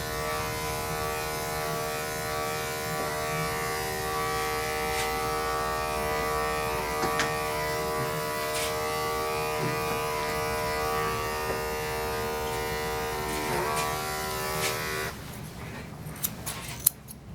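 Electric dog grooming clippers running with a steady buzz, their pitch dipping briefly, then switched off about fifteen seconds in; a few sharp clicks follow.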